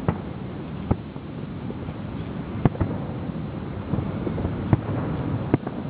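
Fireworks going off: about five sharp bangs at uneven intervals over steady wind noise on the microphone.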